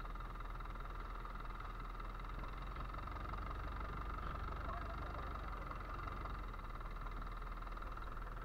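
Fishing boat's engine idling steadily: a constant low drone with a high whine above it.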